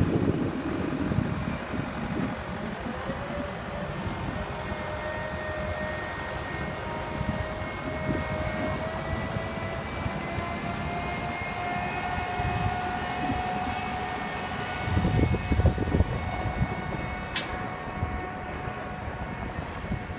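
Steady mechanical whine from a telescoping boom lift raising its platform, its pitch creeping slowly upward as the boom climbs, with wind gusting on the microphone now and then and a single sharp click near the end.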